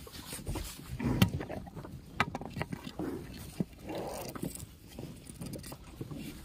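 Cattle jostling at a concrete feed trough, with scattered sharp knocks and dull thuds at irregular intervals.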